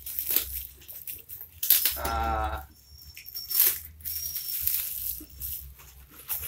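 Plastic parcel wrapping rustling and tearing as it is pulled open by hand, in irregular crackly bursts, with a short high squeal about two seconds in.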